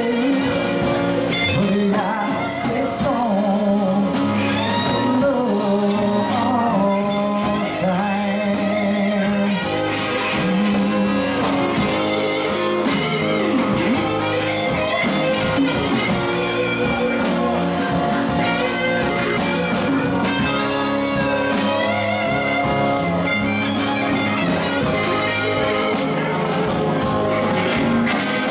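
A live band playing a blues-rock song: electric guitar, acoustic guitar and bass guitar, with a man singing over them at a steady level.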